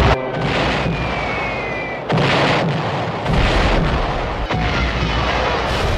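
Junkers Ju 87 Stuka dive-bomber's wind-driven siren screaming in a dive, over a harsh noisy roar with thin falling whistles. The roar swells suddenly about two seconds in and again a second later, among explosions and gunfire.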